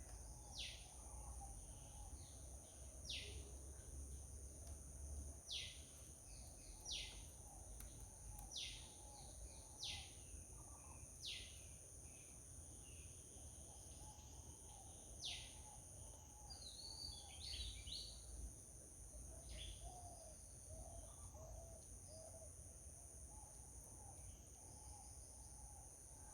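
Faint garden birdsong: a bird repeats a short, downward-sweeping call every second or two, with a brief burst of twittering chirps a little past the middle, over a steady high-pitched drone of insects.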